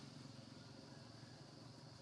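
Near silence: faint, steady outdoor background noise, a low hum with a thin high hiss over it, and no distinct sound from the monkeys.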